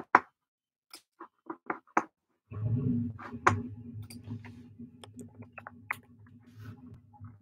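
A handful of short, separate clicks and taps, then from about two and a half seconds in a low steady hum starts, with scattered light clicks over it.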